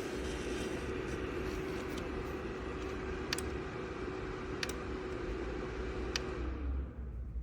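Small PTC ceramic space heater's fan running with a steady hum and airy hiss, with three sharp clicks; after the last click, near the end, the fan winds down, its hum sliding lower and the hiss fading away.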